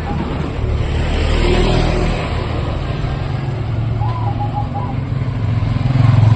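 Street traffic: motor vehicle engines running and passing close, with a louder engine rumble building near the end. A short run of faint high notes sounds about four seconds in.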